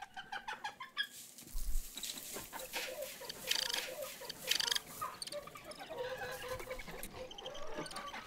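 Domestic hens clucking: a steady stream of short, overlapping calls, with a few louder, higher calls midway.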